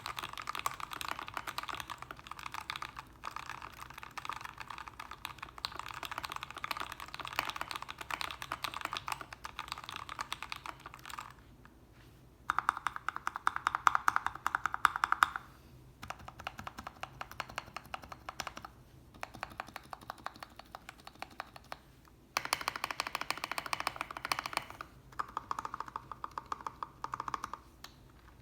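Typing on a Royal Kludge RK61 mechanical keyboard with lubed red linear switches: fast, dense keystrokes in runs broken by short pauses, the loudest run about halfway through.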